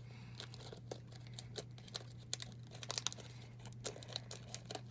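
Plastic wrapper being handled, crinkling in a run of small irregular crackles, over a faint steady low hum.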